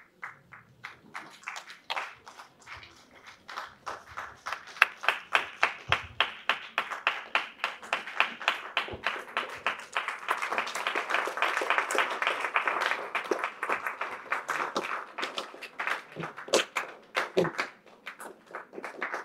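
Audience clapping: a few scattered claps build into steady applause that thins out again near the end.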